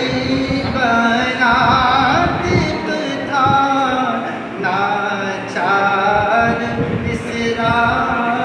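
A man singing solo into a handheld microphone, with long held notes that bend and waver in pitch between short breaths.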